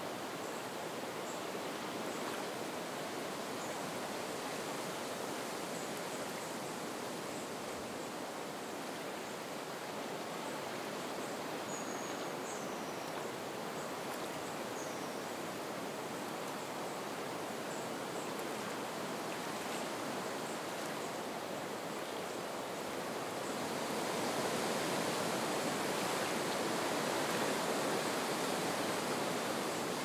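Soft wind blowing through marsh reeds with water lapping the shore, a steady hiss that swells louder about three quarters of the way through.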